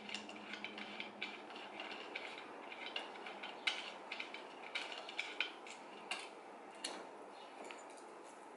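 Faint, irregular metallic clicks and ticks of small bolts being unscrewed by hand from a chair's metal backrest bracket.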